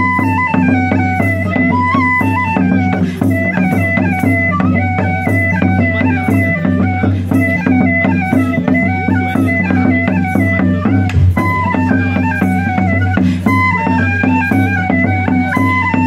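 Live folk band playing a Breton an dro dance tune: a quick, stepping melody over a steady low drone, with a light regular percussion beat.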